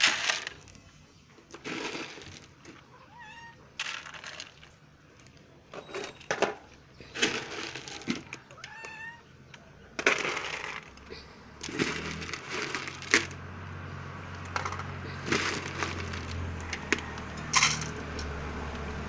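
Domestic cats giving a few short meows, mostly in the first half, over repeated clattering as dry cat food is handled into a plastic bowl through a wire cage. A steady low hum comes in about two-thirds of the way through.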